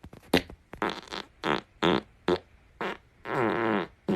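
A string of farts: about seven short ones in quick succession, then one longer, pitched fart lasting most of a second near the end.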